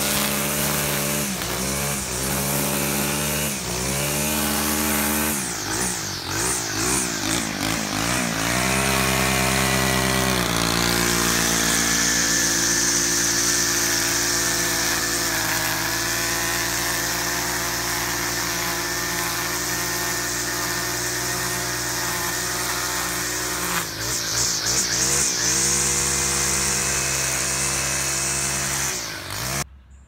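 Gas string trimmer engine running at speed as it cuts grass and edges along a concrete walk. The engine note rises and falls several times in the first third and again near the end, holds steady in between, then cuts off abruptly.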